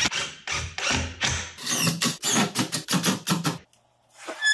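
Cordless Dewalt drill driving pocket-hole screws into pine 2x2s, many short bursts of the motor in quick succession. It stops about three and a half seconds in, and a brief knock with a short ringing tone comes near the end.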